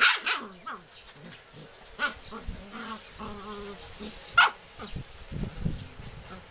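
Dogs play-fighting: three sharp, high yaps, at the start, about two seconds in and the loudest a little after four seconds, with low buzzy growling between them.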